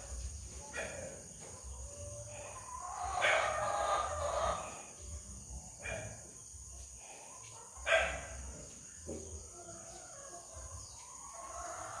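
Scattered calls from farm animals: a longer call about three seconds in and a short, sharp one about eight seconds in, with fainter ones between.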